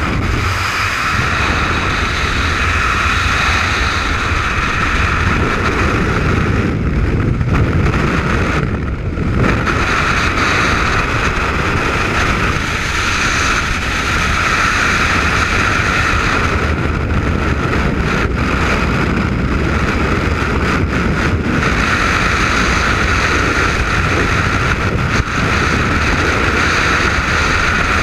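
Loud, steady rush of freefall wind over the microphone of a skydiver's helmet-mounted camera.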